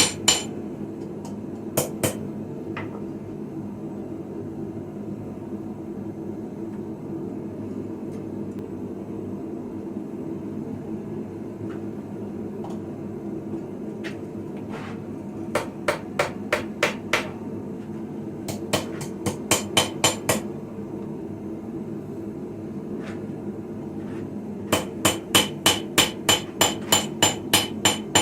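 Blacksmith's hammer striking steel on an anvil while forging a sickle blade, with bright ringing blows. The blows come in bursts: a few near the start, two runs of about seven strikes in the middle, and a fast steady run of about four strikes a second near the end, over a steady low hum.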